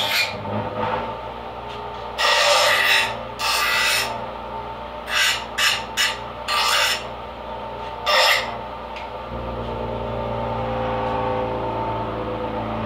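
Hand filing on a small piece of sheet metal being shaped into a dial pointer: two long rasping strokes, then several shorter ones. A steady hum runs underneath and grows louder about nine seconds in.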